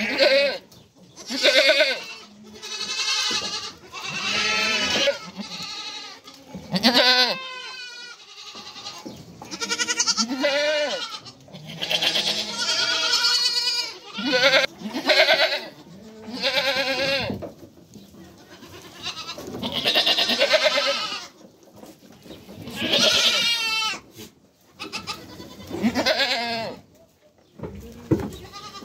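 Goats bleating over and over, about one call every two seconds, many with a wavering, quavering pitch.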